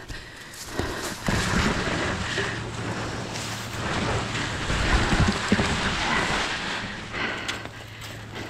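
Tall tussock grass brushing and swishing against the microphone as the wearer pushes through it, a loud rushing rustle with some low rumbling knocks in the middle, easing off near the end.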